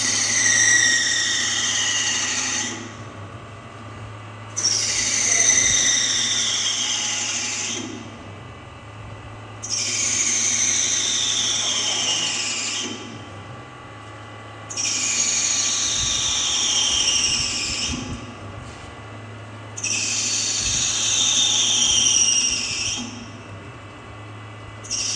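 Retrofitted CNC lathe running a repeated machining cycle on a small rod held in its chuck. A high whine of about three seconds, falling in pitch, comes about every five seconds with a quieter pause between, over a steady low hum.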